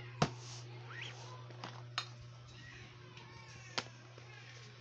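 Handling noise: a few sharp knocks and taps as paper and things on a plastic lap desk are moved, the loudest just after the start, over a steady low hum. A short rising squeak comes about a second in.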